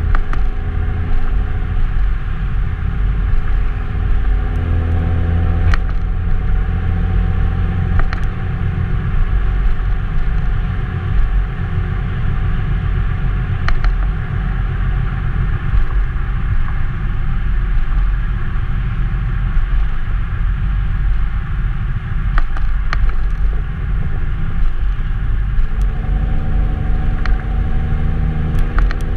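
2002 Nissan Maxima's 3.5-litre V6 exhaust while driving, heard close to the tailpipe: a steady exhaust drone over a deep rumble. The engine's pitched tone is strong for the first few seconds, fades for a long stretch in the middle, and returns near the end.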